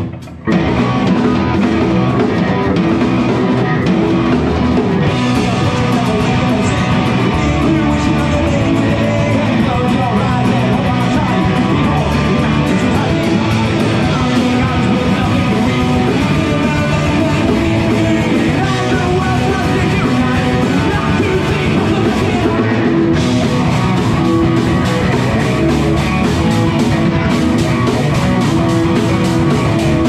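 Live rock band playing loud and steady: electric guitars, bass guitar and a drum kit. The band drops out for a moment right at the start, then comes back in together.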